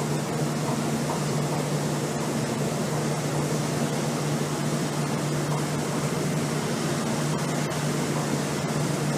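Steady machinery drone aboard a river cruise ship: a constant low hum of unchanging pitch over a wash of noise, typical of the ship's engines running at cruising speed.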